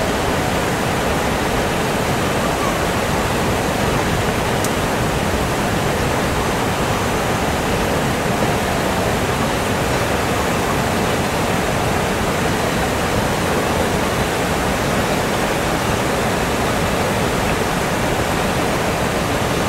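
Steady rush of flowing river water, an even wash with no breaks.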